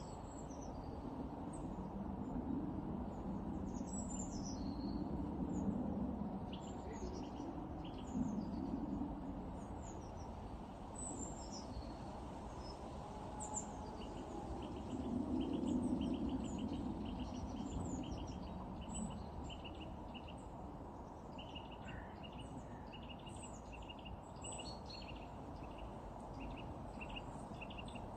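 Titmice calling around a bird feeder: many short, high chirps and, from about halfway, a run of quick repeated notes. A steady low background rumble runs underneath, swelling twice.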